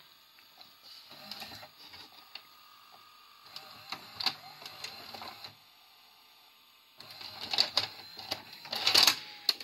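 VHS video recorder's tape mechanism running with soft whirring and clicking, then a VHS cassette pushed into the loading slot clatters and clunks as it is taken in, loudest toward the end.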